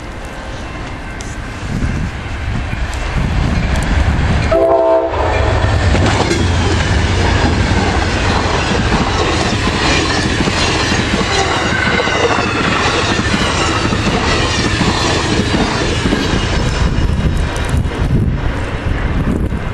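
Amtrak passenger train passing at speed, its wheels and rushing air loud for about thirteen seconds and then easing off. A short horn note sounds about four and a half seconds in, just as the train arrives.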